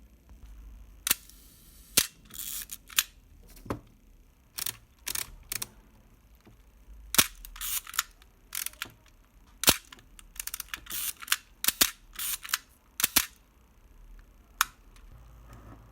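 Nikon FM2's mechanical shutter fired over and over, about a dozen sharp clicks, with short ratcheting rasps between them as the film advance lever is wound to re-cock it: the repaired shutter being test-fired.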